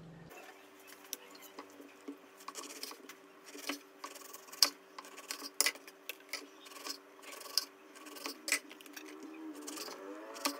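Kitchen knife slicing oranges on a wooden chopping board: repeated cutting strokes and sharp knocks of the blade on the board, over a faint steady hum.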